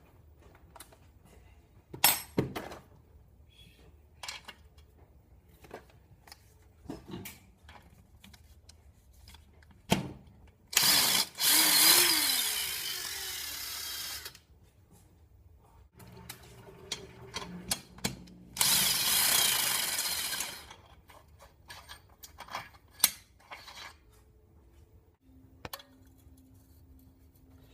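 A power tool runs in two bursts, the first about three and a half seconds long with a falling spin-down tone near its end, the second about two seconds. Sharp clinks and knocks of tools and small metal parts are scattered between them.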